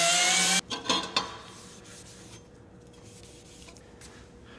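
Handheld power tool running at full speed on steel, a steady whine over a harsh hiss, as rust and dirt are cleaned off the metal; it cuts off about half a second in, followed by two sharp knocks of the tool being set down and then a quiet faint hum.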